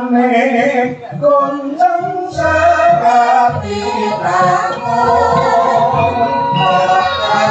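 Javanese gamelan music accompanying a wayang kulit shadow play, with a singing voice over sustained metallic tones. Low, regular beats come in about two and a half seconds in.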